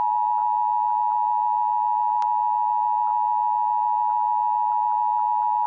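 Emergency Alert System attention signal on a TV broadcast: the steady two-tone alert (853 and 960 Hz sounding together), the signal that heralds the spoken law enforcement warning.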